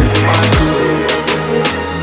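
Electronic dance music with a fast, steady beat and heavy bass, no voices.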